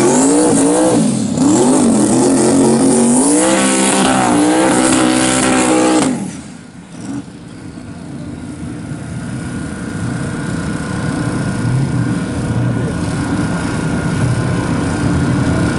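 Drag car's engine revving hard and repeatedly, pitch swinging up and down through a tyre-smoking burnout, cutting off abruptly about six seconds in. It is followed by a lower, steady engine rumble that slowly grows louder.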